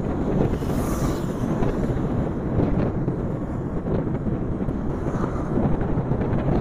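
Steady wind rush over the microphone with road noise from a Simple One electric scooter riding at speed on the highway; there is no engine sound, as the scooter is electric.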